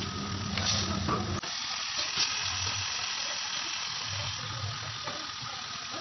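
Steady hiss of curry cooking in a metal kadai over a gas burner. A low hum underneath cuts off suddenly about a second and a half in.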